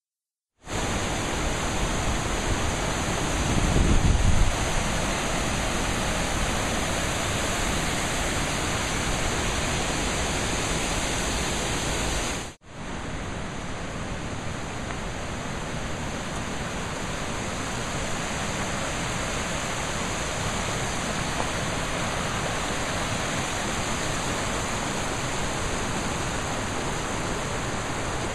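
Mountain river rushing over a rocky bed, a steady even noise of flowing water. A brief low rumble rises over it about four seconds in, and the sound drops out for a moment near the middle before going on slightly quieter.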